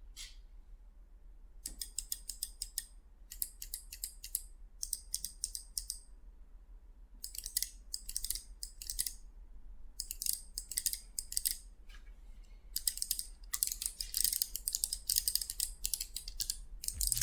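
Typing on a mechanical keyboard fitted with Kailh Jellyfish Box switches, as a switch sound test. It comes in about six bursts of rapid, crisp keystrokes with short pauses between them, beginning a couple of seconds in.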